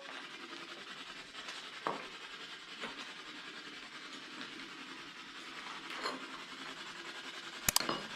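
Steady background hiss with a few faint, isolated knocks spaced a second or more apart, then two sharp clicks in quick succession near the end.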